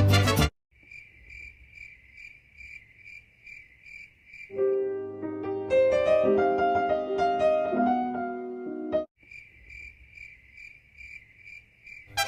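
Cricket chirping at an even rhythm of about three chirps a second, broken off about four seconds in by several seconds of piano music, then chirping again at the same rhythm.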